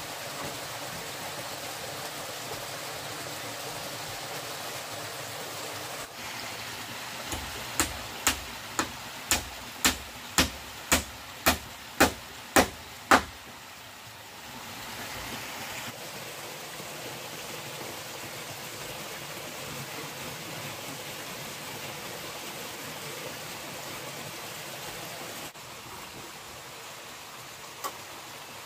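Steady rushing of a small stream's running water. About a third of the way in comes a run of about a dozen sharp knocks, about two a second, each louder than the last, and they stop suddenly.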